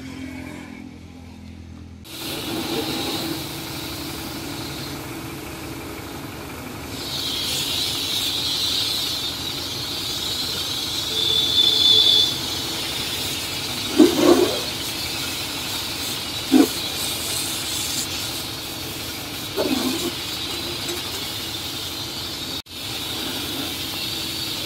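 Firefighter's hose spraying a jet of water into a burnt-out truck cab: a steady hiss that grows stronger partway through, over a steady low engine hum. A few short louder sounds break through near the middle.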